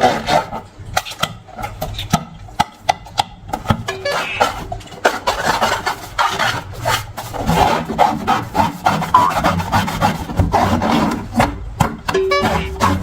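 Rubber balloons and slime being rubbed and squeezed by hand, a continuous rubbing and scraping full of small clicks, with two brief squeaks.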